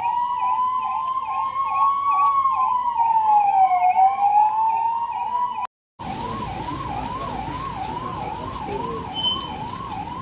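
Emergency-vehicle sirens: a slow rising-and-falling wail overlaps a fast yelp of about three sweeps a second. A brief dropout comes about six seconds in, after which only the fast yelp goes on.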